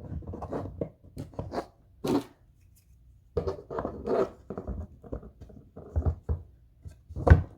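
Parts of a flat-pack corner shelf being handled: a string of light knocks, scrapes and rattles, with a louder knock near the end.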